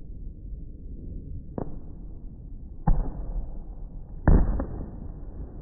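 Aerial fireworks bursting, played back slowed down: four bangs over a low rumble, the loudest about four seconds in.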